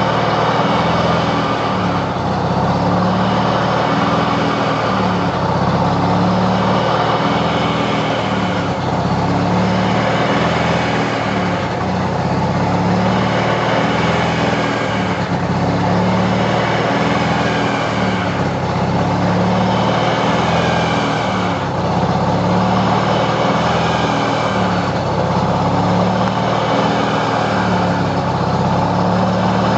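1993 Mazda RX-7's twin-turbo 13B rotary engine running steadily, with a turbo whine in the upper range that rises and falls about every three seconds.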